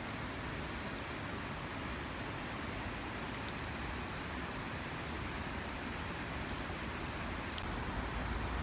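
Steady rushing of a nearby waterfall. Faint crackles from a wood campfire come through now and then, with one sharper pop near the end.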